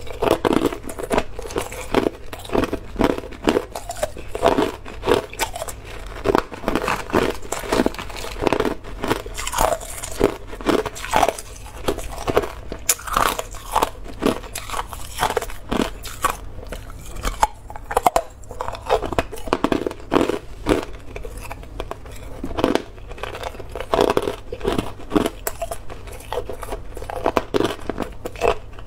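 Hard, clear ice being bitten and chewed: a long run of sharp, irregular crunches and cracks as the chunks break up in the mouth.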